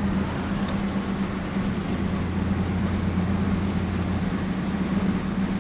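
Steady engine drone and road noise inside a car's cabin while driving at about 35 to 40 mph, with a constant low hum.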